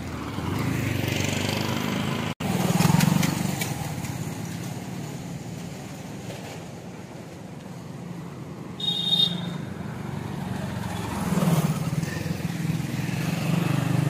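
Road traffic passing close by: vehicle engines, an auto-rickshaw among them, running with a steady low rumble that swells twice as vehicles go past. A short high-pitched tone sounds about nine seconds in.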